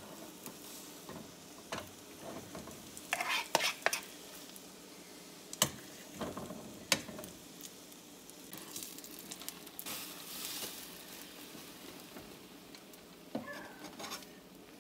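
Beaten-egg batter frying in hot oil in a small nonstick pan, a soft steady sizzle. A few sharp clicks and scrapes of the bowl and utensils against the pan.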